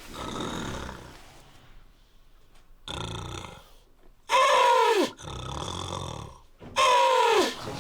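A man snoring very loudly, comically exaggerated: rasping breaths, then two loud snores whose pitch falls steeply, one about halfway through and one near the end.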